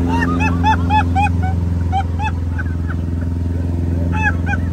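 Single-engine light aircraft's piston engine and propeller droning steadily in the cockpit during the takeoff climb. Over it come short high-pitched chirps or cries in quick runs, several a second, most densely in the first second and again near the end.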